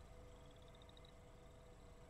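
Near silence with a faint steady hum and a faint high-pitched trill of rapid pulses, rising slightly in pitch, for about a second near the start.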